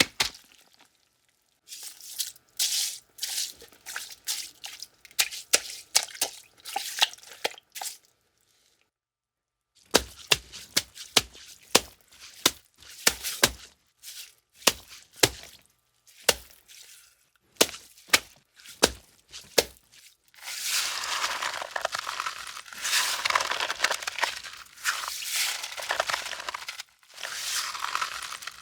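Foley footsteps crunching on a snow surface, one crisp step after another with a short pause partway, then a denser stretch of crunching near the end.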